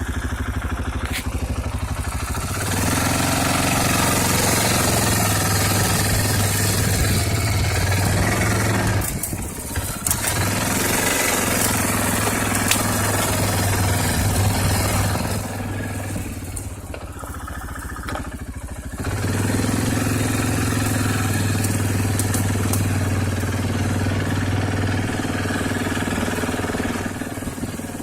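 Arctic Cat TBX 500 ATV's single-cylinder four-stroke engine running under way. The engine note drops briefly about ten seconds in and eases off again for a few seconds past the middle as the throttle is let off, then picks back up.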